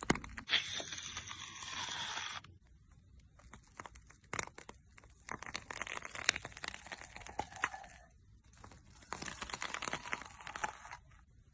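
Thick slime squeezed into a metal strainer and pressed out through its holes in strands, crackling and squelching with many small pops and clicks. A steady hiss fills the first two seconds or so.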